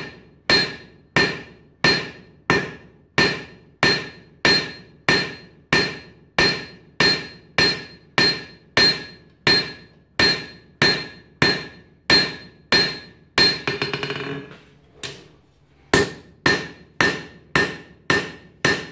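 Steel hammer blows on hot mild steel over an anvil, forging a knife bevel: steady strikes about one and a half a second, each with a bright metallic ring. About two-thirds through the rhythm breaks into a few quick light taps and a short pause, then the steady blows resume.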